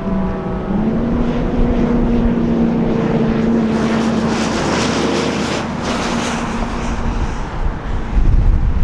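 Federal Signal 2001 rotating outdoor warning siren sounding a steady single-tone wail. The pitch dips briefly under a second in, then holds and fades away about six to seven seconds in. A passing vehicle's rush swells in the middle, and wind buffets the microphone near the end.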